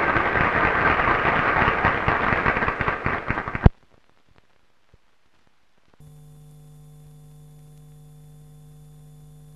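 Assembly hall audience applauding as a speech ends, a dense patter of clapping that cuts off abruptly just under four seconds in. After a quiet gap of about two seconds, a faint steady hum of several pitches starts.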